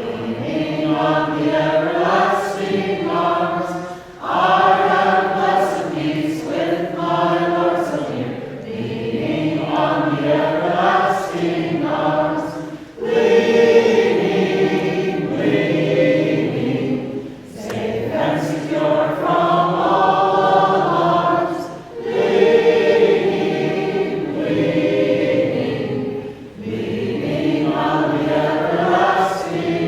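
Vocal group singing a song together in long held phrases, with brief breaks between phrases about every four seconds.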